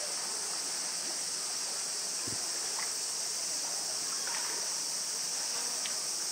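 Steady, high-pitched drone of a summer cicada chorus over fainter running water, with a soft knock about two seconds in.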